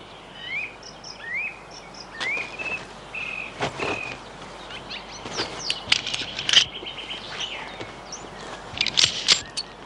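Birds chirping: short rising calls and a few held high notes, with several short clicks in the middle and near the end.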